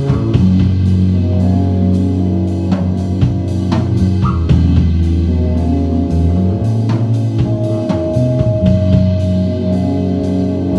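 Live instrumental rock from a band of electric guitar, bass guitar and drum kit: sustained low bass notes under guitar, with cymbals and drums struck in a steady beat.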